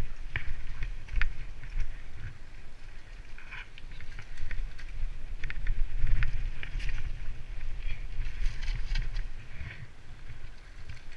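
Mountain bike descending a wet dirt trail: wind buffets the camera microphone in a rumble that rises and falls, over tyre noise on wet dirt and gravel and the frame's rattles and clicks over the bumps.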